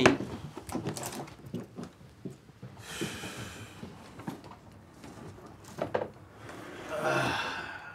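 Small knocks and clicks of objects being handled and moved about at a wooden dresser, with two short rustles about three seconds in and again near the end.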